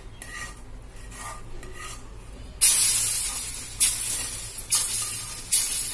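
Hot ghee-roasted coarse wheat flour scraped into a pan of hot milk: a spatula scrapes the small pan. From about halfway through come four sudden sizzling hisses, each fading away, as lumps of the hot flour hit the milk.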